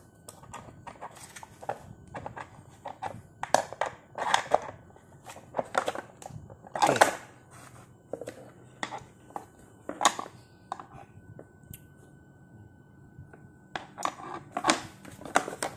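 Adjustable wrench turning a screw extractor anticlockwise into the hub of an LG washing machine's pulsator gear: irregular metal clicks, clinks and grinding scrapes as the extractor bites into the stripped aluminium, loudest about seven seconds in, with a quieter pause before a few last clicks.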